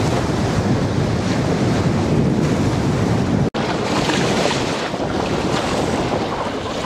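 Strong wind buffeting the microphone while waves break and wash against a concrete reservoir bank. About halfway through there is a split-second gap in the sound.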